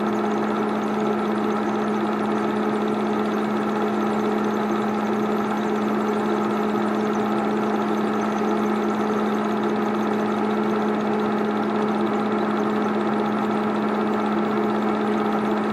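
Old 8mm film projector running steadily as the film spools through: a constant mechanical hum with a steady tone.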